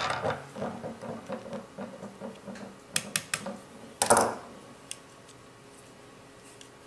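Small clicks and taps of an airsoft rifle's receiver and parts being handled on a wooden workbench, as a pin is worked into a tight fit: a quick run of light ticks for about three seconds, three sharp clicks about three seconds in, then a brief clatter of a tool being picked up a second later.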